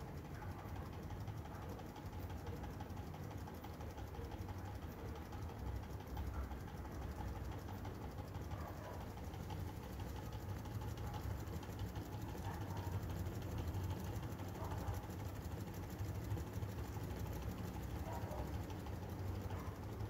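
Small Manson hot-air engine with a glass piston running steadily: a rapid, even mechanical ticking from the piston and valve with each turn of the flywheel, over a low hum.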